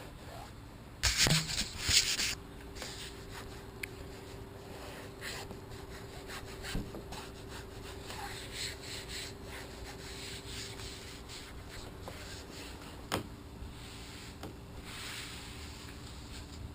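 Hands rubbing and pressing headliner fabric onto a glued headliner board. A loud rubbing scrape comes about a second in, then softer rustling and a single sharp click near the end.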